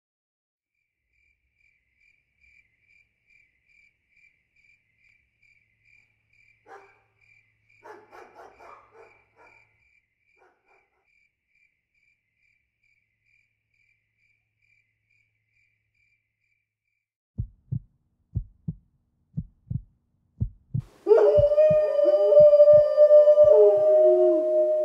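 Faint regular ticking about twice a second with a few soft rustles, then a run of low thumps that come closer together, and about 21 seconds in a loud canine howl, several cries overlapping and falling in pitch.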